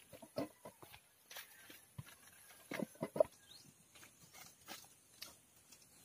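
Mangoes being handled in a stainless steel bowl: scattered light knocks and rustles. About three seconds in, three short clucks, the loudest sound.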